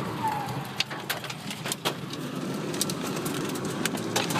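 Tornado wind rushing around a car, heard from inside the cabin, with many sharp ticks and knocks of flying debris striking the car.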